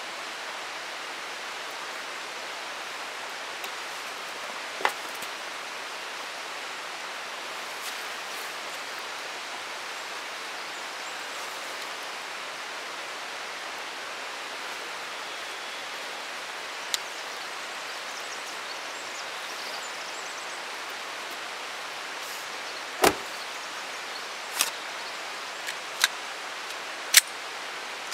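Steady rushing of a creek, with scattered clicks and knocks of gear being handled. About 23 seconds in a car door shuts with a solid thud, followed by a few sharp clicks.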